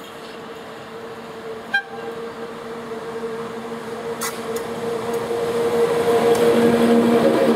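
ET22 six-axle electric freight locomotive hauling tank wagons, approaching and passing close by: a steady hum with two held tones that grows steadily louder as it nears. A single short sharp click sounds about two seconds in.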